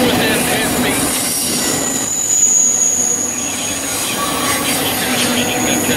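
Freight train of autorack cars rolling past at close range: a steady rumble and rattle of steel wheels on rail. A thin high squeal rises about two seconds in and fades a second or so later, then comes back faintly near the end.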